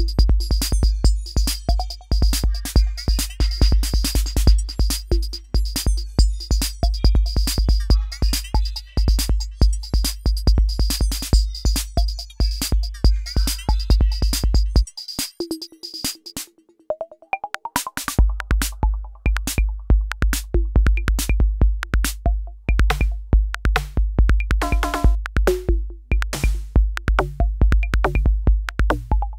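Roland TR-6S drum machine playing a steady electronic drum pattern: kick drum, snare and hi-hats. The kick drops out for about three seconds about halfway through, then comes back in.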